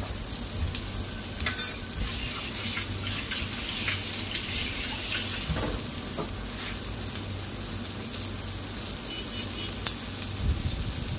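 Eggplant omelette (tortang talong) frying in shallow oil in a nonstick pan: a steady sizzling hiss with scattered crackles and pops.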